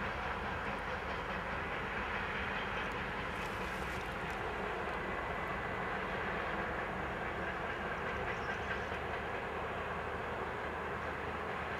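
Diesel locomotive hauling a short freight train, heard from afar: its engine runs with a steady low hum over the even noise of the moving wagons.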